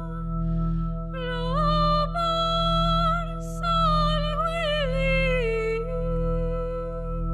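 Slow live music: a woman singing long notes with vibrato, her pitch gliding between phrases, over a steady held keyboard drone.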